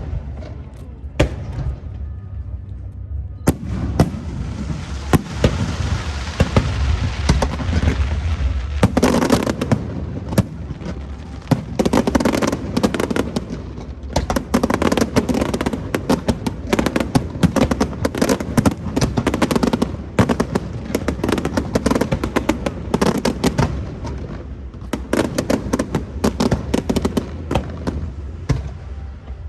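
Fireworks display: repeated sharp bangs from aerial shells, with a hissing spell a few seconds in, then dense rapid crackling and popping from about nine seconds on.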